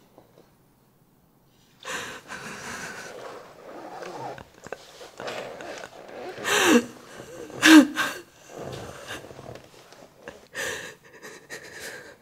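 A frightened woman's ragged breathing and gasps, starting about two seconds in, breaking twice into loud whimpering sobs with a falling pitch, about six and a half and eight seconds in.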